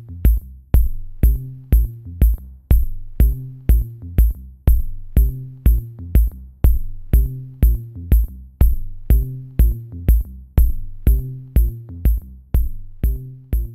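Background electronic music with a steady drum-machine beat, about two beats a second, over a low bass line.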